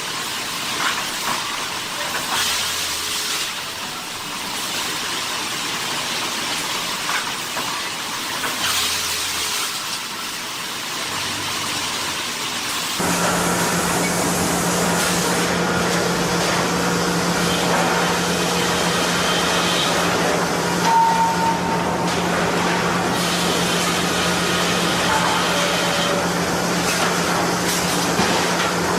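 Sawmill machinery running: a steady mechanical hiss and clatter, with a cut about halfway through to a louder machine with a steady low hum.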